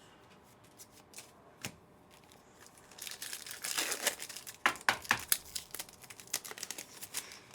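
A trading card pack wrapper being torn open and crinkled, with cards handled, starting about three seconds in after a few faint clicks.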